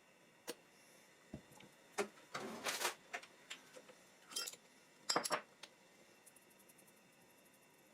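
Kitchen handling sounds: scattered clicks and clinks of dishes and utensils, with a short rustle about two and a half seconds in and a quick cluster of clicks around five seconds in.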